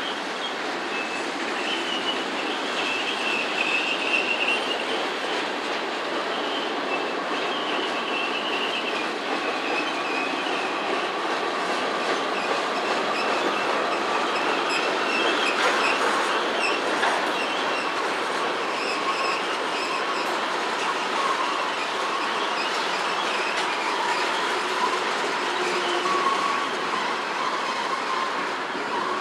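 Freight train's tank cars and hoppers rolling past, a steady rumble of steel wheels on rail with thin, high-pitched wheel squeal that comes and goes.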